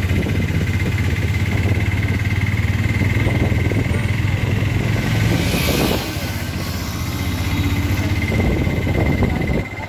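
Auto-rickshaw engine running steadily as it drives along a street, a low hum with a faint steady whine above it. About halfway there is a brief rushing noise, after which the engine runs a little quieter.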